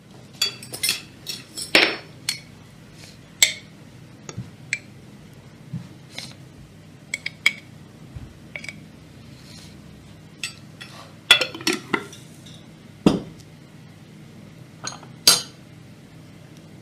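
Tableware clinking: a metal spoon knocking against a glass jam jar and glass dessert bowls, and china cups and saucers being handled, in scattered sharp clinks, with a few louder ones in the second half.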